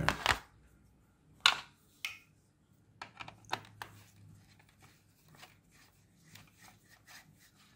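Hand screwdriver turning small screws out of a carbon monoxide alarm's plastic case. A few sharp clicks come in the first two seconds, then a run of faint ticks and scrapes.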